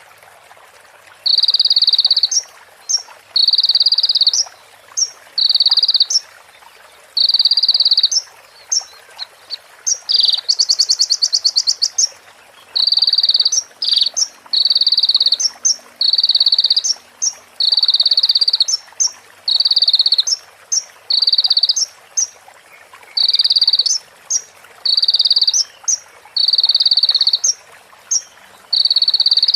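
Konin (Van Hasselt's sunbird) song: short buzzy trills repeated about every one and a half seconds, each followed by a sharp high chirp, in the style of a female prinia's calls. About ten seconds in comes a quicker, higher trill.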